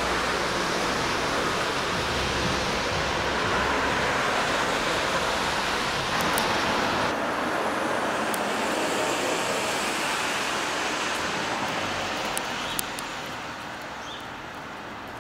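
Steady outdoor street-traffic noise, a rushing hiss with no engine note in it, which turns duller about seven seconds in. A couple of faint clicks come near the end.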